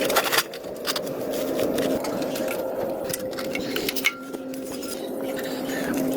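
Light clinks and knocks, several together in the first half second and another sharp one about four seconds in, over a steady low hum.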